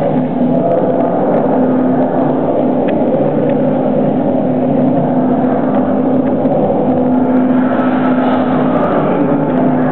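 Steady, loud mechanical drone: a low hum that holds one pitch throughout, with its overtones.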